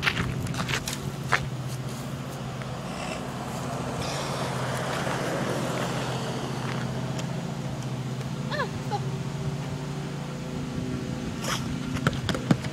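A car passing on the road, swelling and then fading through the middle. A few sharp knocks of a basketball bouncing on pavement come in the first second or so and again near the end.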